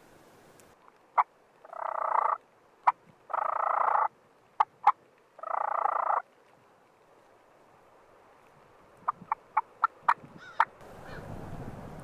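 Osceola wild turkey gobbling three times, each gobble a rattling call under a second long, with single sharp clucks between them. Near the end comes a quick run of about seven sharp clucks.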